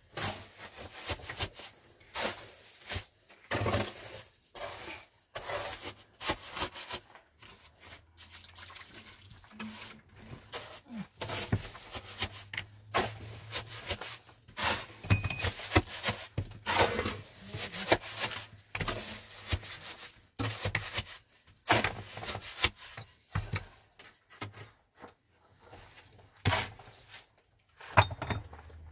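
Irregular clinks, knocks and scraping of hard objects being handled, several a second, with one sharp knock near the end.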